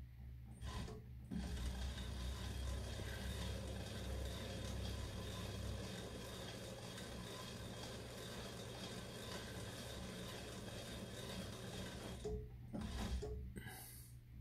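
Metal lathe running steadily while a die in a tailstock die holder cuts a quarter-by-40 thread on the turning workpiece. The lathe starts about a second and a half in and stops about twelve seconds in, and a few clicks and knocks follow.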